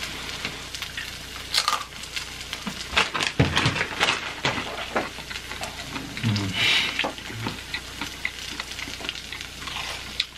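Close-miked mukbang eating sounds: Takis rolled tortilla chips dipped in melted cheese crunching and being chewed. Sharp crunches cluster about three to five seconds in, over a steady sizzling hiss from the cheese on the hot griddle.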